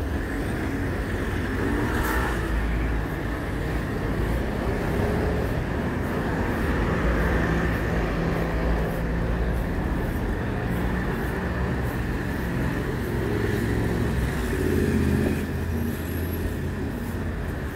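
Steady city street traffic: cars and other road vehicles running past, with a continuous low engine sound.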